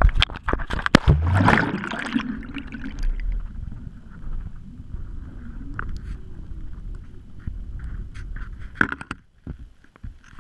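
A GoPro camera on a magnet-fishing rope is thrown into dock water: sharp knocks as it swings, a splash as it goes in a second or so in, then a muffled underwater rumble with small clicks and gurgles as it sinks. A sharp knock comes near the end.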